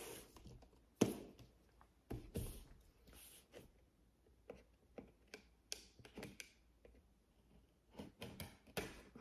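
Scissors snipping the seal on a cardboard graphics-card box, heard as scattered faint clicks and taps, with the box being handled and set upright.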